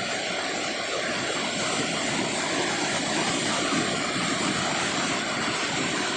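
Fast, muddy floodwater rushing and churning: a steady, even rush of water noise with no let-up.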